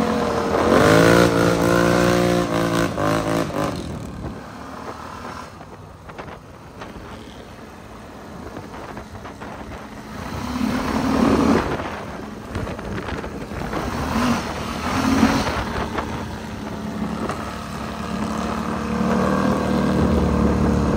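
ATV engines revving and running, rising in pitch about a second in, dropping away for several seconds, then surging again about ten seconds in and settling into a steady run near the end.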